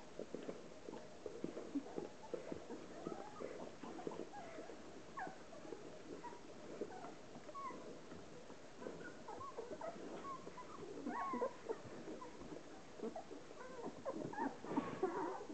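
Ten-day-old Hovawart puppies giving many short, high squeaks and whimpers, more often in the second half, over a steady patter of wet smacking as the mother licks them clean and they suckle.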